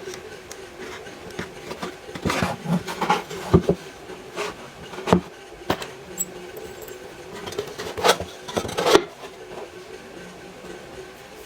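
Handling noises from a small wooden nest box: bursts of rubbing and scraping with several sharp knocks and clicks as it is picked up and turned over, heard over a faint steady hum.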